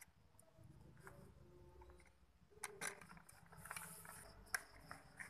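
Near silence with several faint clicks and taps, mostly in the second half: a screwdriver and fingers working at the wiring terminal of a blender motor in its plastic base.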